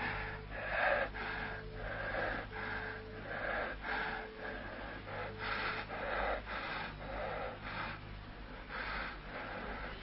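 A man breathing hard and wheezing, with quick labored breaths coming one to two a second.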